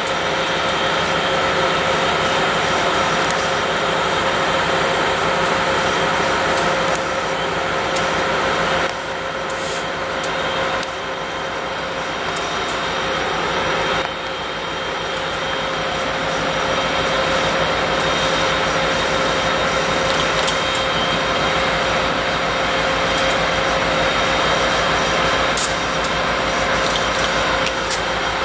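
Norfolk Southern diesel-electric locomotives running as they roll slowly past, a loud, steady engine sound with a constant whine over it. A few light clicks are heard now and then.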